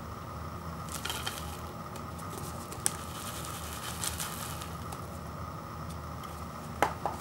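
A paper instant-noodle cup being handled and tilted, with the dry noodle block and seasoning powder shifting inside and the foil lid rustling. There are light crackles and a few sharp clicks, the loudest near the end, over a steady background hum.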